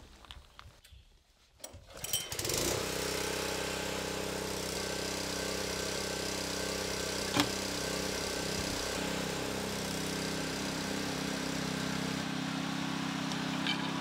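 A portable sawmill's small gasoline engine starting about two seconds in, then running at a steady speed. There is a single sharp click near the middle.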